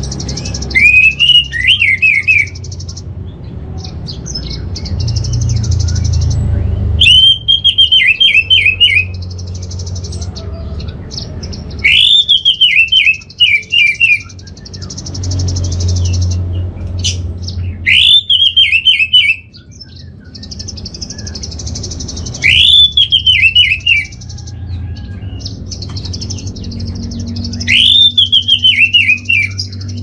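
Bird-song lure recording for orange-headed thrushes: one short phrase, a rising note then a quick run of falling slurred notes, repeated six times about every five seconds. Under it runs a steady high buzzing hiss, with gaps, over a low hum.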